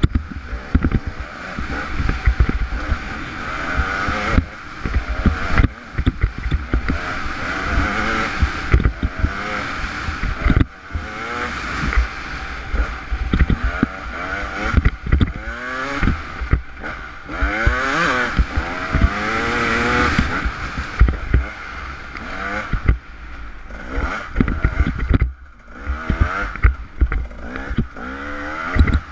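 Off-road motorcycle engine revving up and falling back again and again as it is ridden hard along a rough trail, with rising pitch sweeps on each burst of throttle. Steady wind rush and frequent short knocks and clatters from the bumpy ground run underneath.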